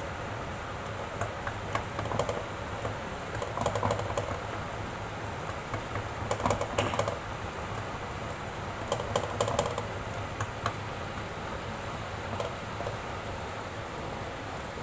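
A spoon stirring and scraping thick carrot halwa in a kadhai, in a few short bouts of clicks and scrapes over a steady low hum.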